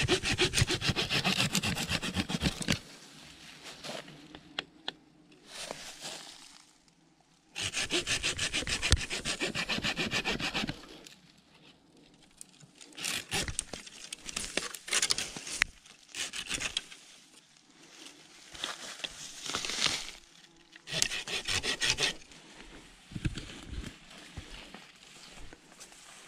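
Hand pruning saw cutting through a leafy tree branch in fast back-and-forth strokes, in two spells: one at the start and another about eight seconds in. After that, irregular rustling and crackling of leaves and twigs as the cut branch is handled.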